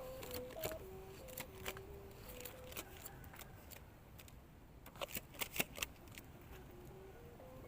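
Thai kite hummer (the bow-string 'oot' on a kite) humming faintly in strong wind, its tone stepping between a few steady pitches as the wind shifts. Sharp clicks run through it, with a cluster of the loudest about five to six seconds in.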